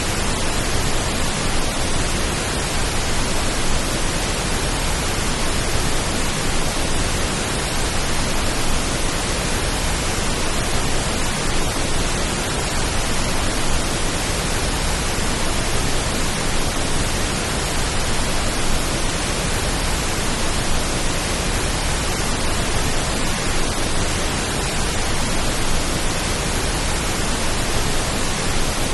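Steady pink-noise hiss, even and unchanging throughout, made as a rain-like sleep sound.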